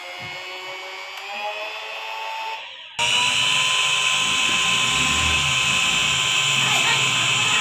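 Philips electric hand mixer running with its beater hooks fitted, a motor whine that slowly rises in pitch. About three seconds in it changes abruptly to a louder, steady high whine.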